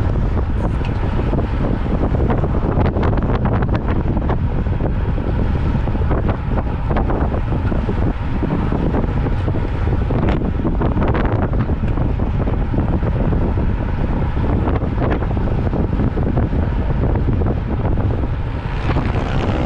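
Steady, loud wind buffeting on the microphone of a camera riding along on a road bike at speed.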